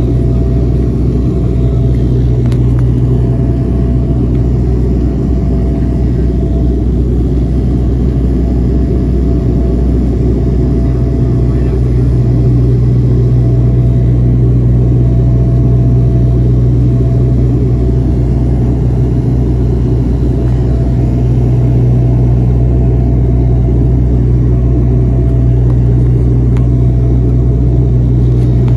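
Twin turboprop engines and propellers of a de Havilland Dash 8-100 airliner, a loud steady drone with a deep hum and a fainter higher tone running over it, unchanging throughout.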